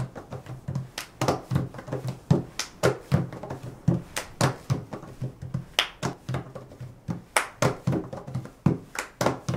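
Hands drumming a quick, even rhythm on a round white plastic container top, with deep fist thumps mixed with sharper palm and knuckle strikes.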